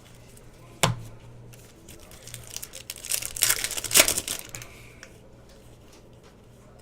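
A sharp tap about a second in, then a foil trading-card pack being torn open and its wrapper crinkled for a second or two, loudest about four seconds in.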